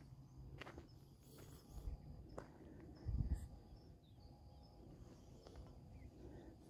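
Faint outdoor ambience: thin, short high-pitched chirps now and then, a few light ticks, and a brief low bump a little after three seconds in.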